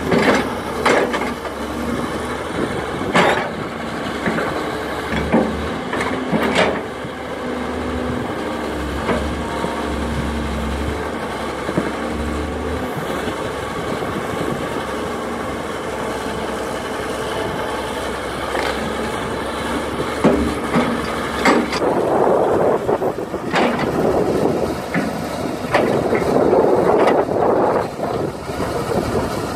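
1983 Priestman Bogmaster hydraulic excavator's diesel engine running steadily while the machine digs in wet peat, with sharp knocks and clanks from the bucket and boom. The engine works louder and rougher for several seconds near the end.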